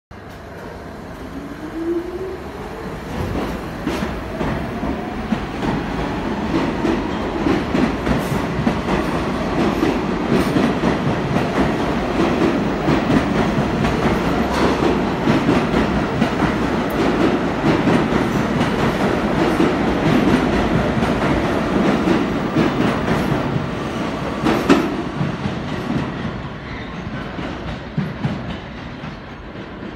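R46 subway train pulling out of the station. Its traction motors give a whine that rises in pitch as it accelerates over the first few seconds, then the cars rumble past with irregular clicks of wheels over rail joints, fading near the end.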